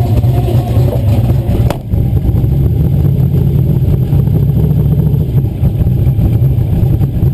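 Turbocharged 435ci Windsor V8 drag-car engine running at idle: a loud, steady, low rumble with no revving, heard from inside the car.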